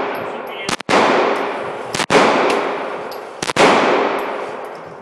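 Three gunshots at a steady pace, about one and a half seconds apart, each ringing out in a long echoing decay.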